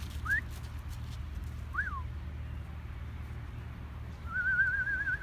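A person whistling: two quick rising whistles, a single rising-and-falling whistle, then a long warbling trill near the end, over a steady low rumble.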